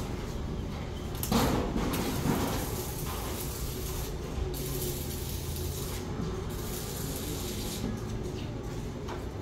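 Building-site noise as workers fit corrugated metal sheeting over a doorway, over a steady low rumble, with a louder stretch about a second in.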